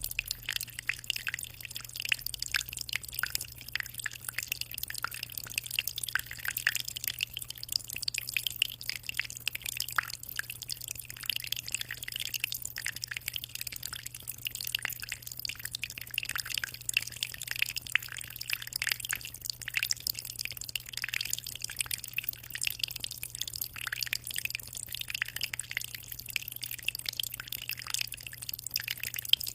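Water trickling and splashing into a 60-litre aquarium: a steady, dense patter of small drips and splashes over a low, even hum.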